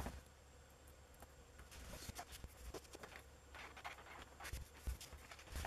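Paper tissue rubbing on a flat grey ribbon cable: faint, irregular scratchy rustling as sticky residue is wiped off, with a few soft bumps of handling near the end.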